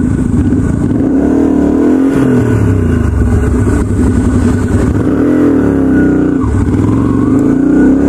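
Yamaha Virago 250 custom chopper's small air-cooled V-twin running under way, heard from the rider's seat. Its pitch rises and falls several times as the throttle is opened and eased.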